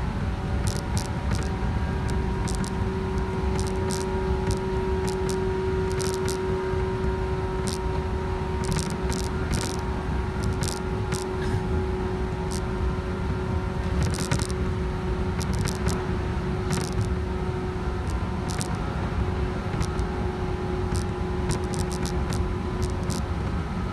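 JR West 117 series electric train running, heard from inside the passenger car: a steady rumble of wheels on rail with a level humming tone, and frequent light ticks and rattles.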